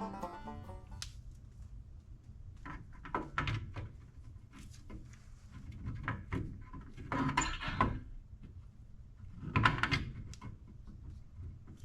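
Scattered clinks and knocks of tools and metal parts being handled during a wheel hub job, with the loudest cluster just before ten seconds in, over a steady low hum.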